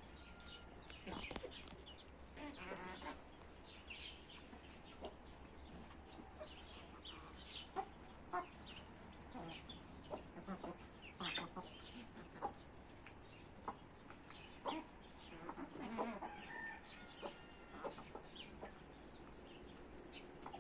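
A flock of chickens clucking, with scattered short calls and light pecking or scratching sounds.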